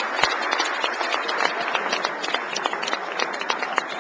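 An audience applauding, a dense patter of many hands clapping that slowly fades.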